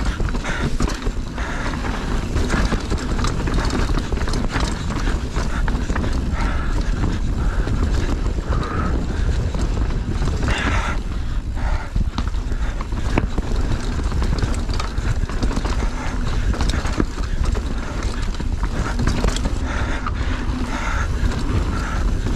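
Mountain bike descending a rough enduro trail over roots and rocks: a steady rushing of riding noise, with the bike clattering and knocking in quick, irregular hits.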